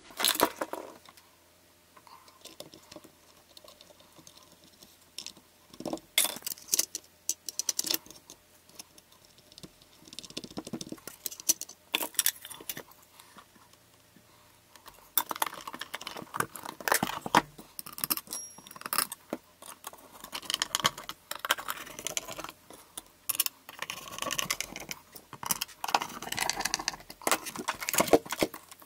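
LED floodlight being reassembled by hand: irregular clicks, knocks and rattles of its front frame and housing parts being handled and fitted, with a quieter stretch early on.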